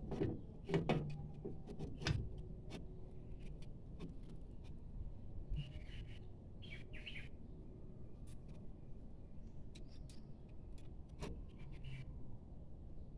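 Light metal clicks and knocks as a brake shoe is worked into place on a rear drum-brake backing plate, most of them in the first two seconds and one more about eleven seconds in. A few short high chirps come and go in between.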